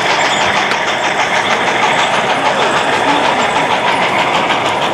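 Model steam locomotive running along a layout track, with a steady chuffing in a quick, even rhythm over the constant noise of a busy exhibition hall.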